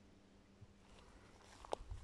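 Faint water sounds of a dog paddling across a pond, with one sharp little plop near the end.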